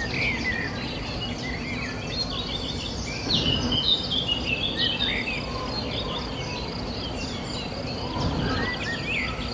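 Many small birds chirping and trilling, most busily a few seconds in, over a steady high-pitched buzz and a low background hum.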